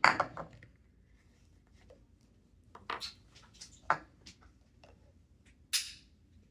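Small clicks and knocks of a plastic glue bottle and measuring cup being handled on a table while measuring out glue, the sharpest knock about four seconds in, with a brief rustling scrape near the end.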